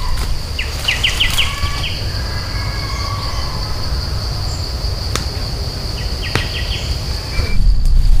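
Insects droning in a steady high-pitched whine, with a short rapid run of chirps twice and two sharp clicks. A low rumble underneath grows louder near the end.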